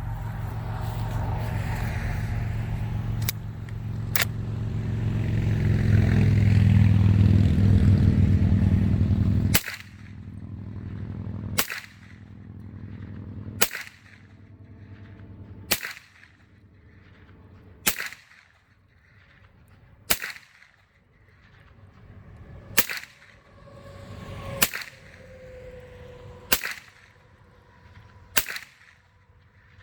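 Suppressed .308 rifle fired with supersonic ammunition through a home-built suppressor: about ten sharp cracks, one roughly every two seconds, starting about a third of the way in. Before the shooting starts, a loud low rumble fills the first third.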